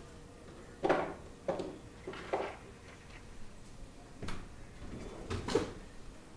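Half a dozen short, sharp knocks and clunks at irregular intervals, the loudest about a second in and again near the end.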